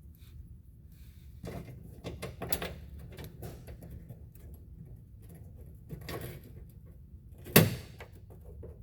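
Clicks, scrapes and rattles of a small fastener being worked into the mounting hole of a cover panel, with one sharp knock near the end.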